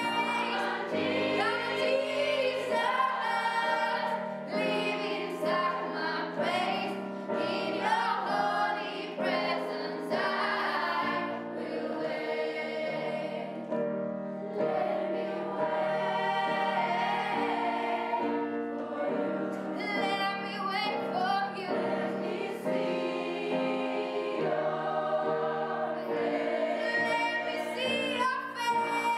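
Children's choir, mostly girls' voices, singing a song together, with a low accompaniment under the voices.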